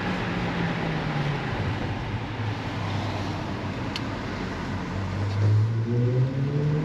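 Pagani Zonda F's Mercedes-AMG V12 engine note easing off and falling in pitch, dropping under road and tyre noise, then rising again from about five seconds in as the car accelerates.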